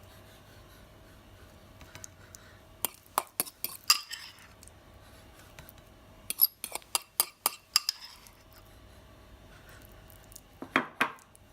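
Metal cutlery clinking and scraping against a dish in three short clusters of sharp taps, as avocado is mixed with lime juice, zest and olive oil.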